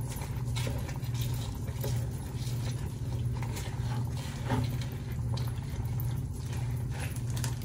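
Steady low hum of a kitchen appliance, with a few light clicks and knocks.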